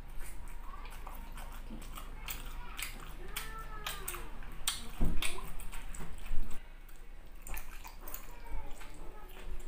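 Close-up wet mouth sounds of eating with the hands: lip smacks, finger sucking and chewing, a run of many sharp wet clicks, louder for a stretch about five seconds in.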